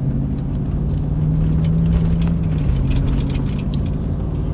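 Steady low mechanical drone, engine-like, whose pitch steps up slightly about a second in and drops back a little past the middle, with a few faint clicks over it.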